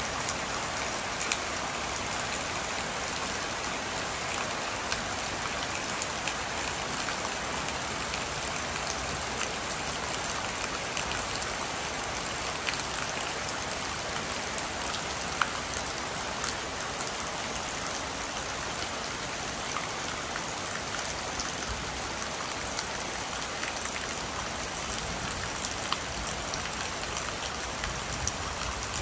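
Steady rain falling: an even hiss dotted with scattered sharper drop ticks.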